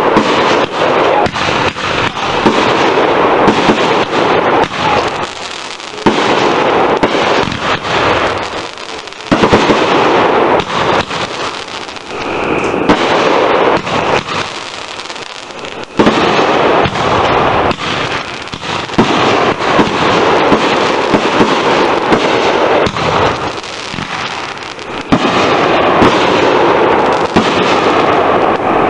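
Aerial fireworks going off in rapid succession, shells bursting overhead amid dense crackling, with a few short lulls between volleys.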